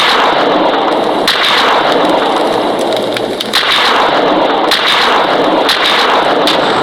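Explosion sound effects from an Android explosion-screen prank app, set off by taps on the phone screen. The blasts overlap into one continuous loud noise, with a new blast starting every second or two.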